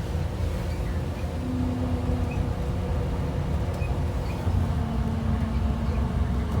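A 2012 IC RE school bus's MaxForce DT diesel engine running under way, heard from inside the cabin as a steady low rumble. A faint higher hum comes in twice and fades.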